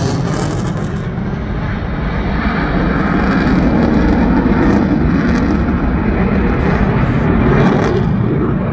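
RAF Eurofighter Typhoon's twin EJ200 jet engines roaring in afterburner as the jet flies past and away. The roar loses its hiss about a second in, leaving a loud, steady deep rumble.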